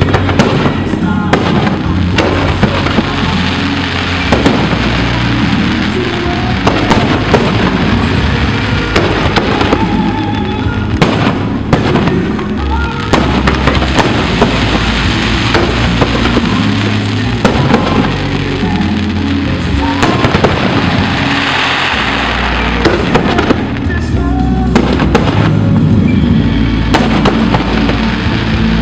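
Fireworks display: a continuous, rapid series of shell bursts and crackles, heard over music with a steady bass line.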